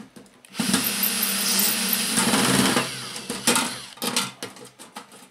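Cordless drill running for about two and a half seconds against a rust-seized screw in a microwave oven's metal casing, with a steady motor drone under a harsh grinding noise. It is followed by a few sharp clicks and knocks as the drill is pulled away.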